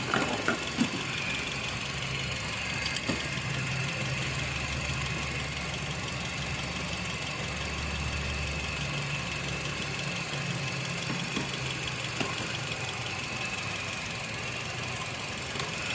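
Toyota Corolla's four-cylinder petrol engine idling with a steady hum and a faint high whine, with a few light clicks about a second in. The car has an intermittent misfire logged as P0354, a fault in the number 4 ignition coil circuit, which the mechanic puts down to wiring or a loose coil connector.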